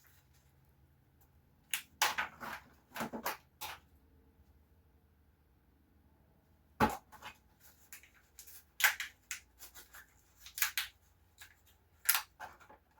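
Sharp clicks and knocks of hand tools and parts being handled during front wheel hub assembly work. They come in a short group about two seconds in, a single harder knock about seven seconds in, and a denser run of clicks near the end.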